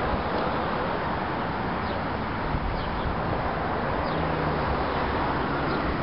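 Steady outdoor background noise with a few faint, short high chirps from birds scattered through it.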